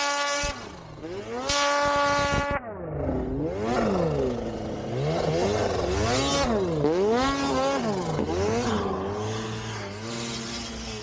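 Snowmobile engine held at high revs and cut back twice in the first few seconds, then revved up and down in quick repeated surges, about one a second.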